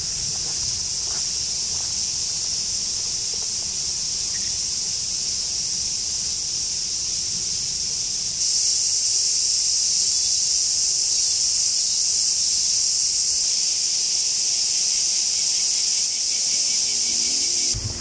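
A chorus of cicadas buzzing steadily, a dense high-pitched drone. It jumps louder about halfway through and cuts off just before the end.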